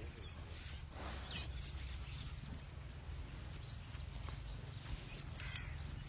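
Outdoor farmyard ambience: a steady low rumble with a few short bird calls, around a second in and again near the end.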